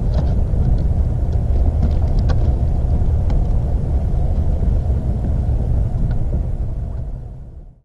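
Wind buffeting an outdoor camera microphone: a steady low rumble with a few faint clicks over it, fading out near the end.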